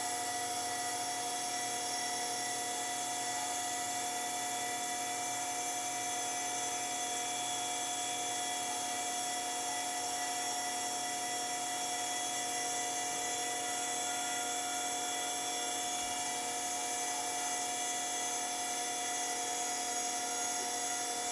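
Small lathe spindle motor running at a steady speed with a steady whine, spinning a stainless-steel ring core in a collet chuck while wet polishing paper is held against the ring.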